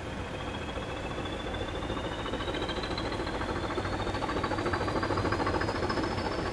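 Diesel locomotive hauling coaches as it approaches, its engine running under power with a rapid pulsing beat and a high whine that rises steadily in pitch, both growing louder.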